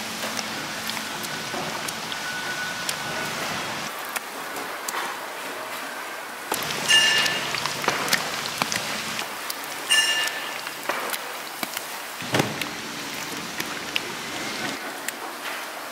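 Battered pieces deep-frying in hot oil: a steady sizzle with many small crackles. Twice, about seven and ten seconds in, a louder clatter with a brief ringing tone, and a short thump a little after twelve seconds.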